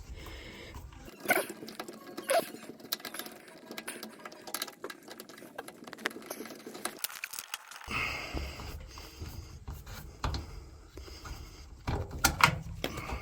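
A small Phillips screwdriver turning out the washer drain pump's mounting screw: a run of light, irregular clicks and scrapes, with a few louder knocks.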